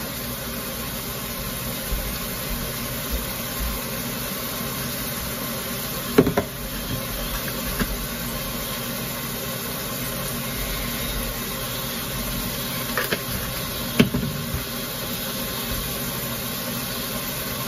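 Ground beef sizzling steadily in a skillet on a gas burner, with a few sharp knocks, the loudest about six seconds in and more near the end, as seasoning containers are handled.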